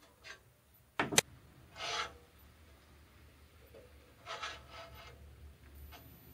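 Parts and tools handled on a band saw's steel table during blade setup: two sharp metal clicks about a second in, then short scraping rubs around two seconds and again around four to five seconds.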